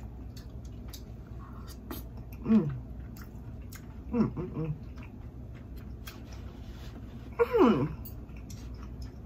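A woman chewing a hot mouthful of shrimp and cheesy grits, letting out three short closed-mouth moans that fall in pitch, about two and a half, four and seven and a half seconds in, with faint mouth clicks between them.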